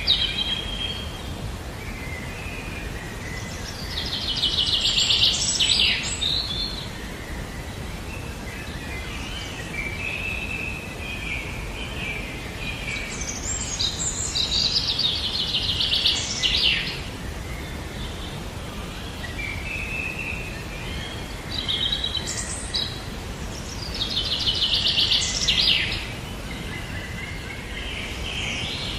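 Songbird singing: three loud, fast trills of rapidly repeated high notes, roughly ten seconds apart, with softer chirps between them, over a steady low background noise.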